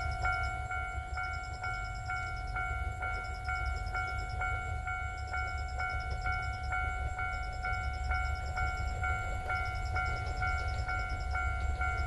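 Japanese railway level-crossing warning bell ringing steadily, about two strikes a second, each strike a short electronic ding: the crossing is active, signalling an approaching train.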